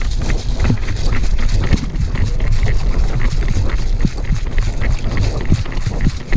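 A person running: footsteps about two to three a second over a steady low rumble of wind and movement noise.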